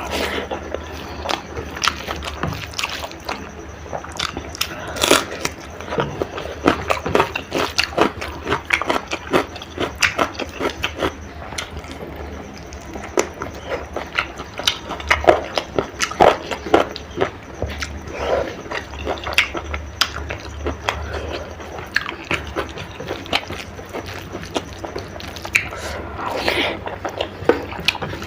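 Close-miked eating sounds: wet chewing and lip smacks of someone eating spicy chicken curry with rice, many quick irregular clicks throughout.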